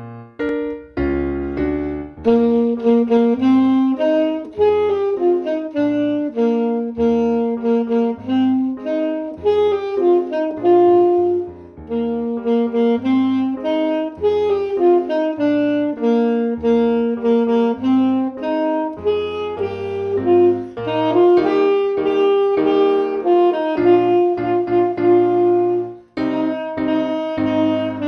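Alto saxophone playing a tune in separate notes, phrase after phrase, over a keyboard backing track.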